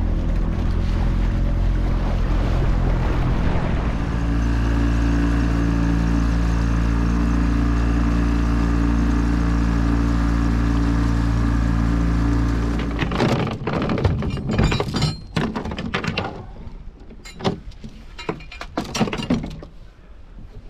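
Small boat's outboard motor running steadily, changing speed about four seconds in, then cutting off about thirteen seconds in. After it stops comes a run of irregular knocks and clatters.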